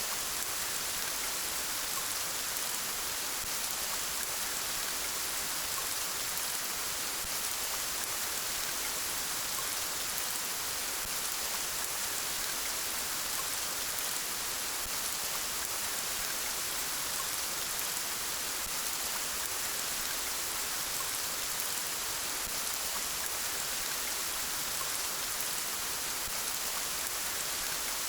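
Steady rain falling, an even hiss with fine scattered drop patter.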